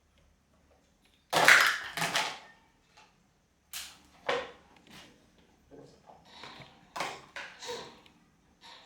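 Irregular knocks and clatters of household things being handled, the loudest about a second and a half in, with smaller ones scattered after.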